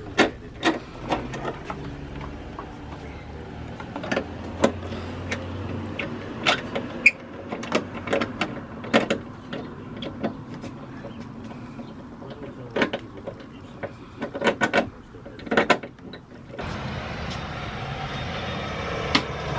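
Irregular sharp plastic clicks and knocks as the plastic interior trim panel of a hatchback's rear liftgate is pried and pulled off its retaining clips. Near the end the clicks stop and give way to a steadier background noise.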